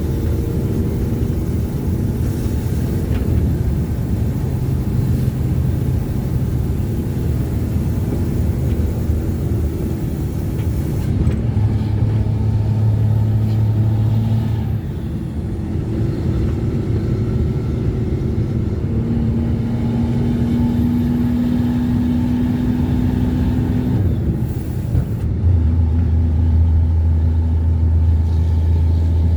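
Ford Cargo 2428 truck's diesel engine running under way. Its steady note shifts to a new pitch several times, about a third of the way in, halfway, and near the end.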